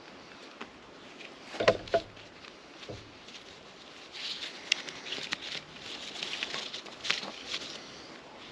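Nylon webbing tree strap being wrapped and pulled around a tree trunk, rustling and scraping against the bark, with two sharp knocks about two seconds in and a longer run of scratchy rustling in the second half.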